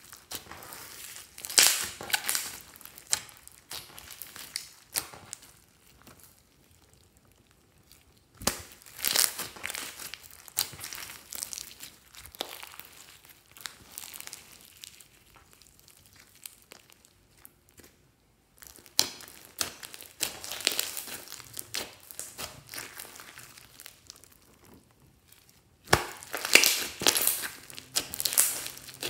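Hands squeezing, pressing and stretching sticky slime mixed with foam beads. It makes dense crackling and small pops in bursts, with quieter stretches between them and a louder run of crackles near the end.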